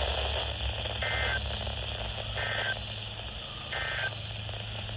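Emergency Alert System end-of-message data bursts on NOAA Weather Radio: three short two-tone digital chirps about 1.3 s apart, signalling the end of the test broadcast. Heard over steady radio hiss and hum.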